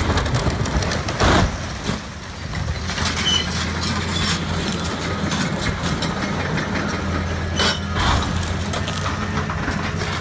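A heavy engine running steadily, with crunching and knocking impacts over it, the loudest about a second in and again near eight seconds.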